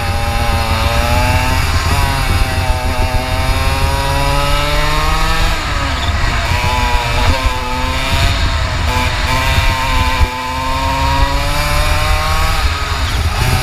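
125 cc two-stroke kart engine heard onboard, its pitch climbing as the kart accelerates and dropping sharply twice, about five and ten seconds in, as it slows for corners, over a steady low rumble.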